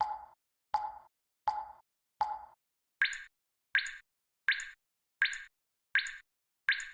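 A series of short cartoon-style pop sound effects, about one every three quarters of a second. The first four are lower-pitched, and from about halfway on six come at a higher pitch.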